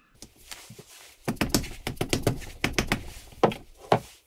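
A quick, irregular run of clicks, taps and knocks from hands handling small metal engine parts and the camera being moved. The knocks are densest in the middle, with two sharper knocks near the end.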